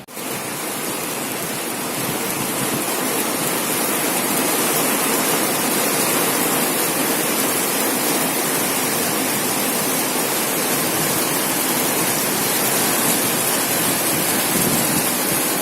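Heavy thunderstorm rain pouring down, a steady dense hiss that starts abruptly and builds slightly over the first couple of seconds.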